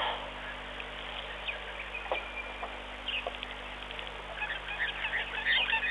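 Birds calling: scattered short chirps and clicks, one brief whistled note about two seconds in, and a quick run of calls in the last second, over a steady low electrical hum.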